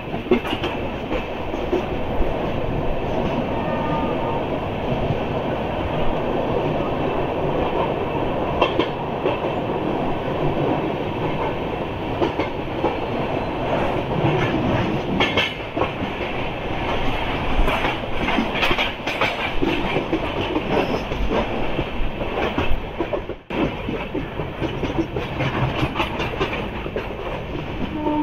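Passenger train coach running on the track, heard from its open doorway: a steady rumble with irregular clicking and clattering as the wheels cross rail joints and points, busiest about two-thirds of the way through. The sound briefly cuts out a few seconds before the end.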